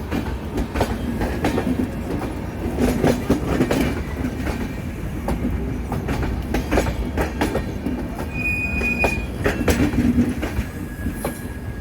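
Royal Vikramshila Express running at speed: a steady rumble with the wheels clattering over rail joints. A brief high tone sounds a little over eight seconds in.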